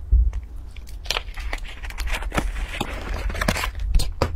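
Paper pastry wrapper crinkling and crackling in many sharp snaps as a bread roll is handled in it, with a bite into the bread near the end. A steady low hum runs underneath.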